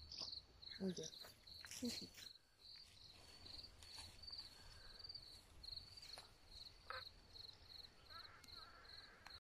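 A cricket chirping steadily and faintly, a high chirp repeating about twice a second.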